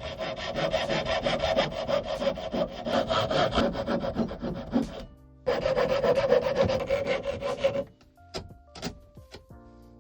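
Small hand saw cutting a tiny wooden tenon in quick, even strokes. It stops briefly about five seconds in, then saws on until about eight seconds in, when the cut is finished. A few light knocks follow.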